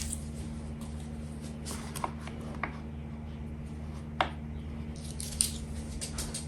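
Small objects being handled and set down on a desk: a few light taps and clicks with soft rustling, over a steady low hum.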